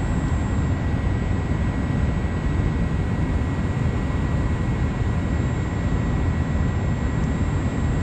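Trane XC95M modulating gas furnace running steadily at high fire on LP gas, a constant rumbling noise of burner and fans with a faint steady high tone over it.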